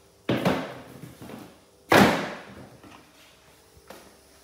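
Two loud bangs about a second and a half apart, like something being shut hard, each fading out briefly; the second is the louder.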